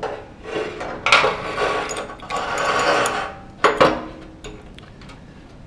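A kitchen tap's flexible tails being fed through the tap hole in the sink, scraping and rattling against the hole's edge, with a sharp knock about a second in and two more knocks near the middle. Then it goes quiet.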